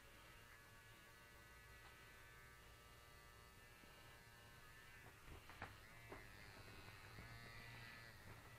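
Faint steady buzz of a small battery-powered vibrator's motor held against a cat. Its pitch wavers from about six seconds in, and a few short knocks come around five to six seconds in.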